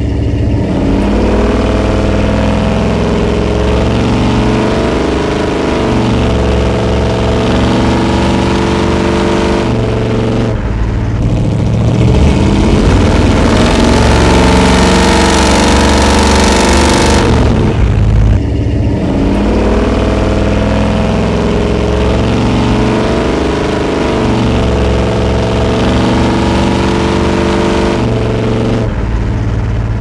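1986 Chevy Suburban's 454 big-block V8 with headers and true 3-inch dual exhaust under repeated hard acceleration. The exhaust note climbs in pitch and drops back again and again, as at upshifts, and is loudest and fullest about 12 to 17 seconds in.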